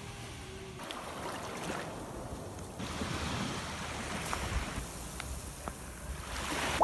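Small waves washing onto a sandy beach, with wind on the microphone; the noise changes abruptly a few times.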